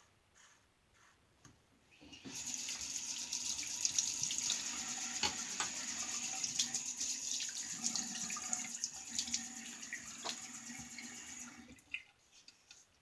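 Tap water running into a sink, turned on about two seconds in and shut off near the end, with splashes as something is rinsed under the stream.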